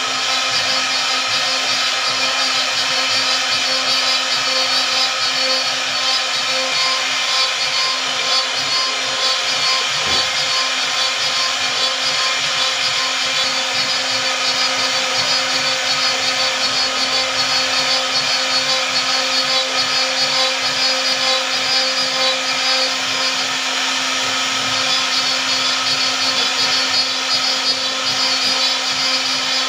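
An electric machine motor running steadily, with a constant high whine and a hissing edge.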